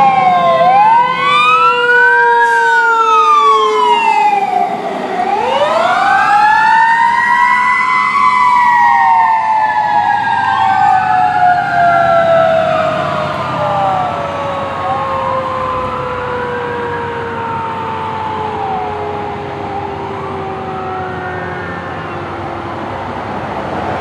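Fire engine siren wailing, rising and falling every couple of seconds, with a second, steadier tone that climbs about five seconds in and then slowly sinks. The siren grows fainter toward the end as the truck drives away.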